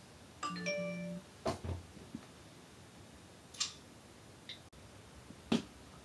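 A short electronic chime, then several sharp clicks and knocks as power-supply cable connectors are handled inside an open desktop PC case; the loudest knock comes near the end.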